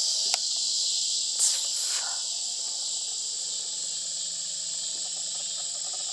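Steady, high-pitched chorus of insects singing in the dark, with a short click just after the start and a brief falling sound about a second and a half in.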